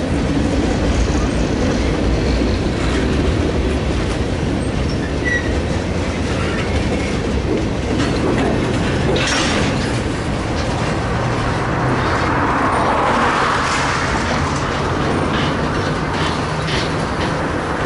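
Freight train cars rolling slowly past: a steady low rumble of steel wheels on rail, with clicks as the wheels cross rail joints.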